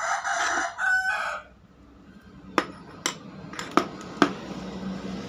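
A rooster crows once, loud, in the first second and a half. Then come about five short sharp clicks and taps over a low steady hum.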